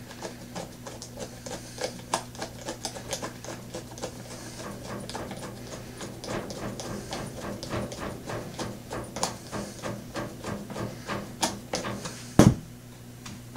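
Screwdriver turning the end-cap screw and lock nut that clamp the Roland GK-3 pickup's mounting bracket: a quick run of small metal clicks, several a second, with one louder knock near the end.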